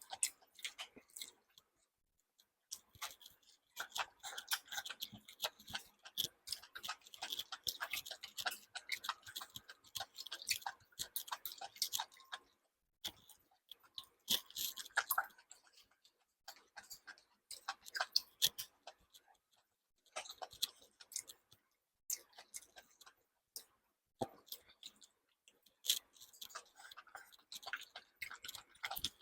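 Close-miked eating: chewing with many wet mouth clicks and smacks in irregular runs, broken by short pauses about two seconds in and near the middle.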